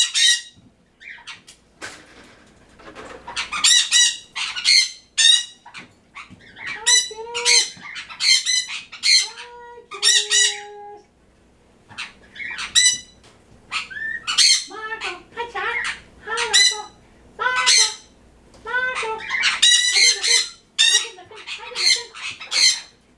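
Pet birds squawking over and over in harsh bursts, mixed with a few clearer, lower calls, with a short lull about halfway through.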